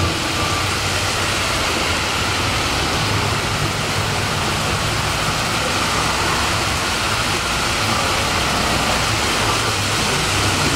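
Heavy rain falling steadily on a flooded street, with cars driving through the water.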